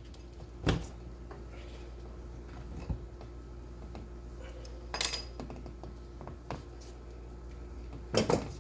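Scattered knocks and light metallic clinks, about five in all with a short cluster near the end, as tools and plumbing parts are handled, over a low steady hum.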